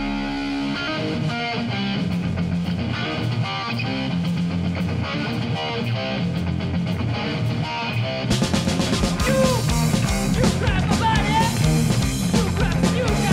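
Punk band playing live: distorted electric guitars and bass drive a riff over the drums, then the full kit comes in with crashing cymbals about eight seconds in. The singer's voice joins near the end.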